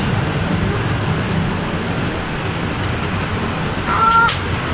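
Steady street traffic noise, with a short two-tone beep about four seconds in.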